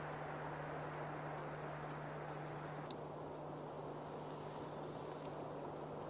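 Steady background hiss with a constant low hum, and a few faint high-pitched ticks from about halfway.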